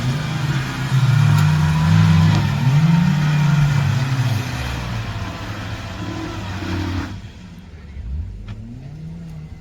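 Off-road vehicle's engine revving up and down under load, with a rough noisy layer over it. About seven seconds in the sound drops sharply to a quieter engine note, which rises once more near the end.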